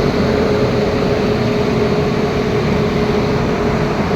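A vehicle engine running steadily, with a constant hum over a loud, even noise.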